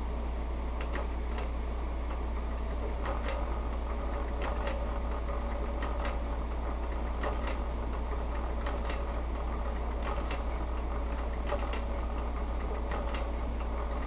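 Industrial sewing machine stitching thick leather slowly, a click for each stitch about once a second, often in close pairs, over a steady low motor hum.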